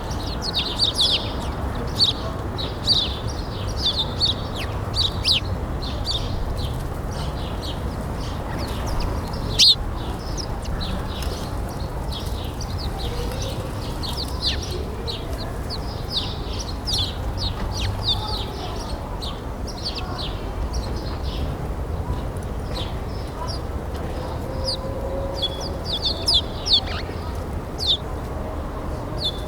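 Many small birds chirping in quick, high calls, overlapping densely throughout, over a steady low background rumble.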